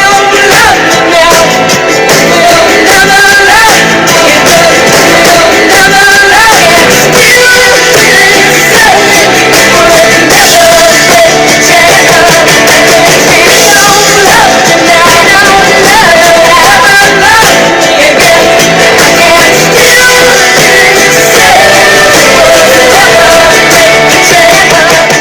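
Loud rock song with a singing voice.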